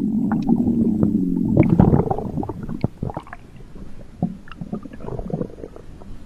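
Stomach rumbling: a long, pitched, sliding growl for about the first two seconds, then a string of smaller gurgles and pops that grow quieter.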